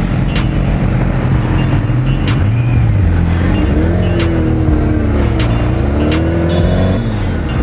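Sport-bike engines running as the motorcycles pull away. One bike's engine note dips and then rises again from about four to seven seconds in, over a steady backing beat.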